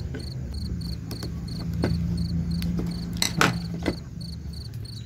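A cricket chirping steadily in evenly spaced high pulses, about four a second, over a low steady hum, with a few sharp clicks from wires and a small circuit board being handled, the loudest about three seconds in.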